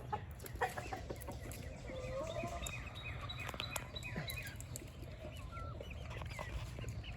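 A small flock of chickens clucking and giving short, scattered calls, with a few light clicks among them.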